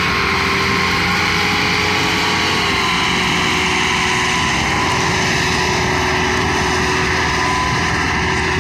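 Diesel farm tractor engines running hard under heavy load, hauling a towering sugarcane trolley: a loud, steady engine drone whose pitch dips slightly about two and a half seconds in.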